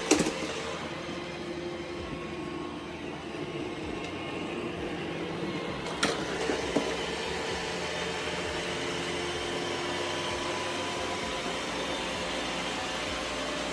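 iRobot Roomba i7+ robot vacuum running, a steady whir of its vacuum motor and brushes, with a sharp click about six seconds in.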